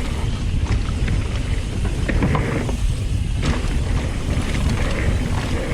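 A mountain bike rolling along a dirt jump trail at speed, with wind buffeting the microphone. Scattered clicks and rattles come from the bike.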